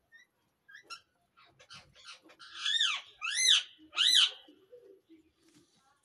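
Cockatiels chirping softly, then three loud calls in quick succession about halfway through, each rising and falling in pitch.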